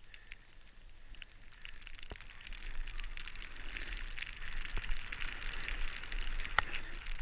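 Snowboard sliding over snow: a hiss of the board's base and edges, with faint crunchy ticks, that grows louder about two seconds in.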